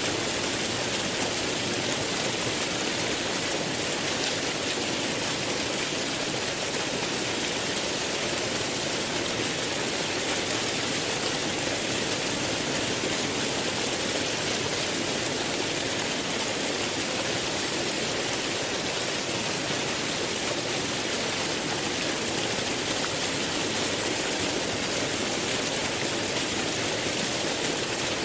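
Rushing water flowing steadily, an even, unbroken hiss with no change in level.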